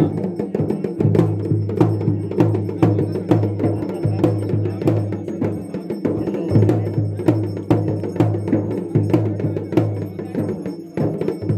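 Traditional drums playing a steady beat, sharp strikes over a low pulsing drum tone.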